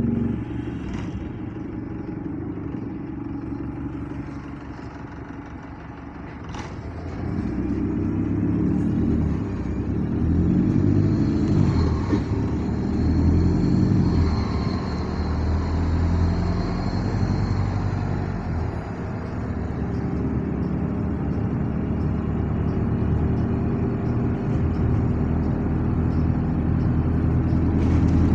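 Diesel engine of a double-decker bus, with its engine-driven air compressor, running as heard inside the passenger saloon. It grows louder about seven seconds in, and its pitch rises and falls several times as the bus pulls away and changes gear.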